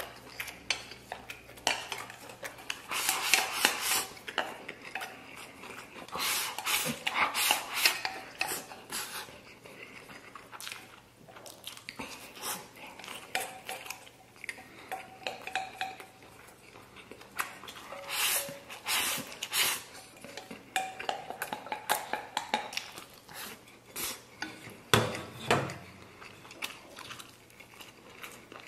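Wooden chopsticks clicking and scraping against a stainless steel bowl as rice is shovelled into the mouth, in quick irregular runs, with some chewing.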